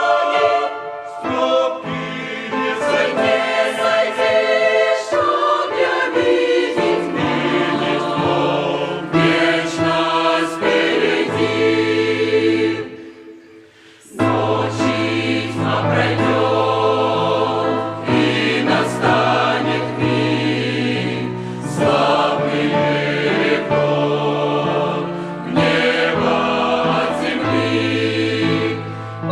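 Choral music: a choir singing over sustained low bass notes. The music fades almost to nothing about 13 seconds in and starts again a second later.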